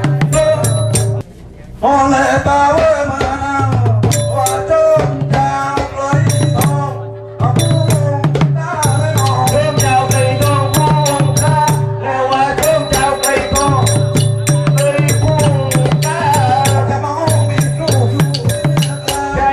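Live Nora ensemble music: drums beat a quick repeating pattern under frequent sharp cymbal strikes, with a sustained tone and a wavering melody line above. The music drops out briefly about a second in, then runs on.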